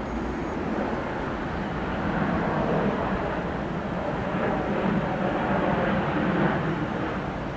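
Engine noise from a Virgin Australia Boeing 737 jet airliner passing low on landing approach with its gear down. The roar swells as the plane comes overhead, then eases slightly near the end.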